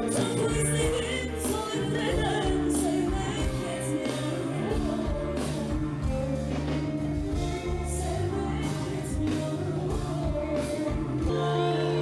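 Live band music through a PA system: a woman singing lead over drum kit, cymbals and bass.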